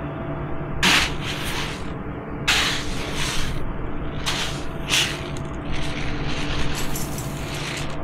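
Steady drone of a running combine. Over it come a series of short rustling hisses.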